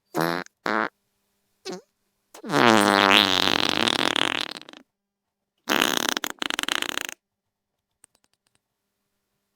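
Wet fart sound effects in a series: two short blasts in the first second, a brief one, then a long pitched fart of about two seconds whose pitch wavers, and finally a sputtering fart that crackles for over a second.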